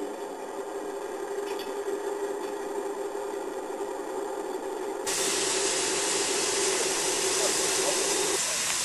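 A steady hum under a hiss, then about five seconds in a sudden louder, high-pitched steam hiss from the North British-built steam locomotive 191, steam escaping around its cylinders as it stands. The hum fades out near the end.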